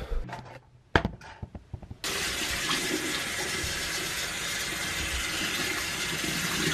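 A sharp click about a second in, then a sink tap turned on hard about two seconds in, water running and splashing steadily into the basin.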